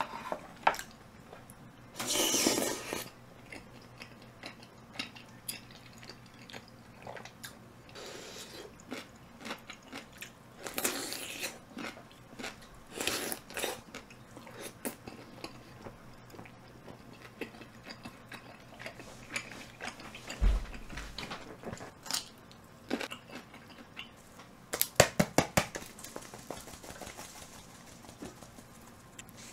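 Close-up eating sounds: crunchy bites and chewing, with chopsticks and a fork clicking against a ceramic dish. A quick run of sharp taps comes near the end.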